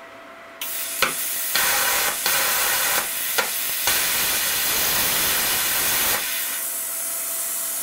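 Cut 50 ST plasma cutter cutting 1 mm steel sheet at 11 amps. Compressed air starts hissing through the torch, the arc strikes about a second in with a few sharp cracks, and it cuts with a loud, dense hiss. The arc cuts off about six seconds in, and the air keeps hissing more quietly.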